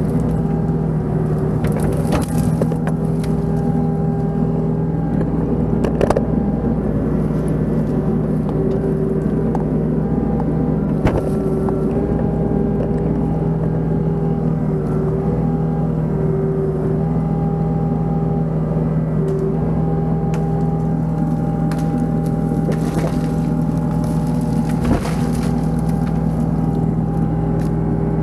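Compact excavator's diesel engine running steadily under load, with hydraulic whine that comes and goes as the boom and ripper tooth work. A few sharp cracks and knocks stand out as the tooth tears a pine stump and its roots out of the ground.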